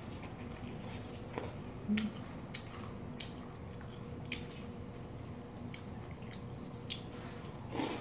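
Close-miked wet chewing and small mouth clicks and smacks of someone eating cold noodles in broth. Near the end comes a louder slurp as a mouthful of noodles is sucked in.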